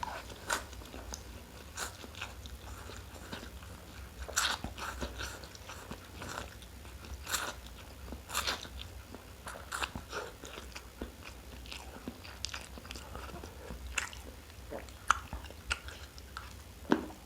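A person eating close to the microphone: irregular bites, chewing and small crunches with wet mouth clicks.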